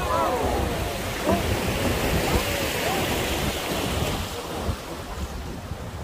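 River rapids rushing around a wooden boat, with wind buffeting the microphone. The rush of water is strongest in the middle and eases near the end.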